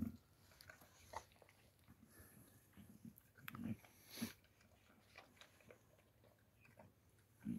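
Boxer dog eating from a steel bowl: faint chewing with scattered clicks of teeth and food against the metal, a few a little louder about three and a half and four seconds in.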